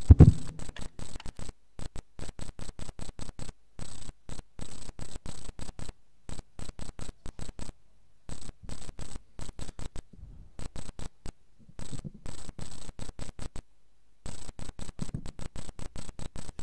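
Rapid, irregular crackling clicks, with the sound cutting in and out many times a second like a faulty audio connection. There is a low thump just at the start.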